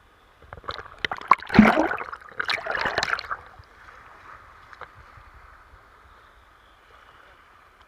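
River water rushing around a raft, with a burst of loud splashing and sharp knocks from about half a second to three and a half seconds in, then a steady rush of water.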